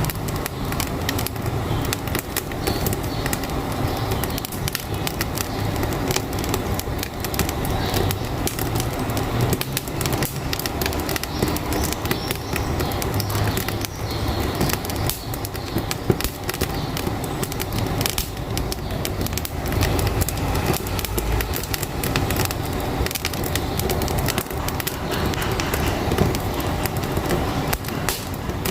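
Wood fire crackling in a wood-burning stove, a dense run of snaps and pops, over the low steady rumble of a truck engine.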